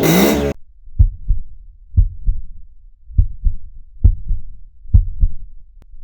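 Heartbeat sound effect: paired low thumps, about one pair a second, over silence, starting after the previous sound cuts off abruptly about half a second in.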